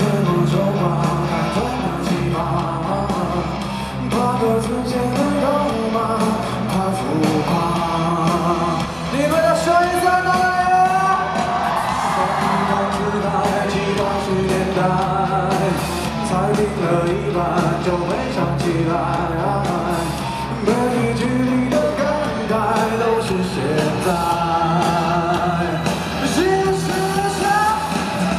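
Live pop-rock band, with drums, bass and electric guitars, playing while a male singer sings lead vocals into a microphone. Heard from the audience in a large concert hall.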